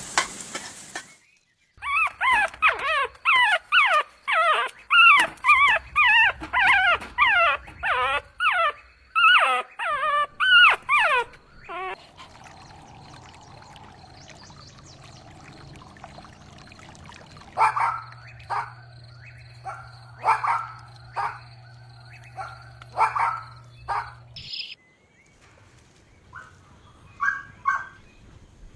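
Puppies whining and yelping in a fast string of short, high cries that slide in pitch, lasting about ten seconds. This is followed by a few more spaced-out yelps over a steady low hum.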